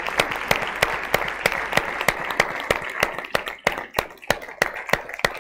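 Audience applauding, a dense clapping that thins out to scattered separate claps over the last couple of seconds.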